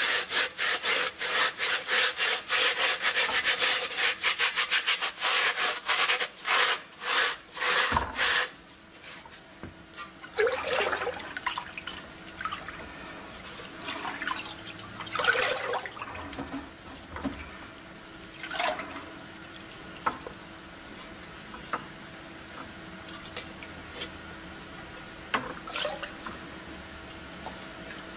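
A sponge scrubbing the rusted steel of a helmet in rapid back-and-forth strokes for about the first eight seconds. After that, scattered sloshes and splashes of liquid as the helmet is dipped and washed in a bucket of cleaning solution.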